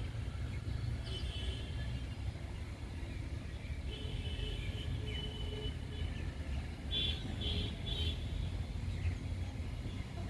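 Outdoor ambience: a steady low rumble under a few high bird chirps, with three short notes in quick succession about seven to eight seconds in.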